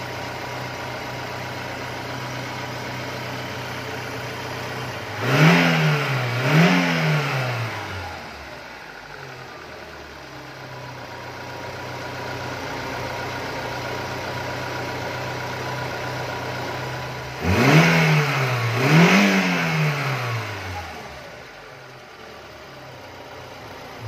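Lada Niva's fuel-injected four-cylinder petrol engine idling, revved in two quick blips about five seconds in and two more about seventeen seconds in, each rising and dropping back to idle. The engine is at 150,000 km with freshly cleaned injectors.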